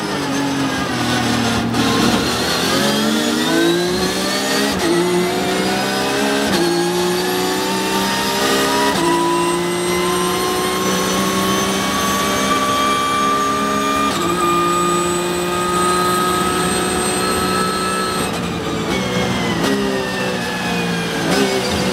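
Porsche 911 GT3 Cup's flat-six race engine heard from inside the cockpit: it comes down in revs under braking, then pulls hard through the gears, the pitch climbing and dropping sharply at each of about five quick upshifts before holding high along the straight. Near the end it falls again in steps as the driver brakes and downshifts.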